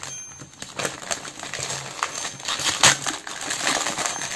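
Crinkling and rustling of butterfly-print gift wrapping being pulled open by hand, with a louder crackle near three seconds in.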